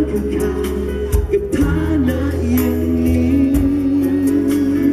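A man singing a pop ballad live into a handheld microphone over backing music, ending on one long held note with vibrato.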